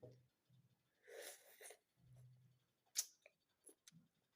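Faint eating sounds as a cooked mussel is tasted: a breathy slurp about a second in and a single sharp click near three seconds, with a soft low hum.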